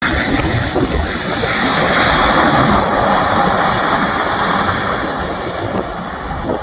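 Beechcraft King Air 300's twin turboprop engines and propellers running as the aircraft rolls out on the runway after touchdown, a loud whooshing drone that swells to a peak about two seconds in and then slowly fades as it moves away.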